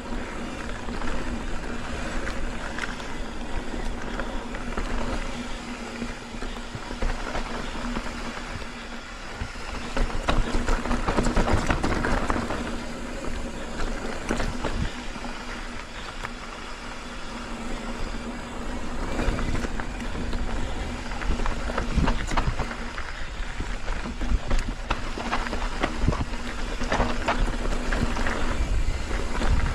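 Mountain bike riding a dirt trail: steady rolling noise from the tyres on dirt and rock, with frequent knocks and rattles from the bike.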